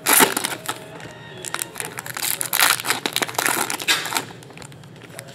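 Foil trading-card pack wrappers crinkling as they are torn open and handled, in several uneven bursts, the loudest right at the start.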